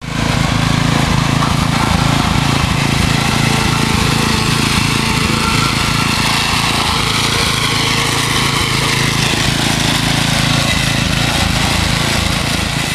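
Small gas-powered garden tiller's engine running steadily as its tines churn garden soil.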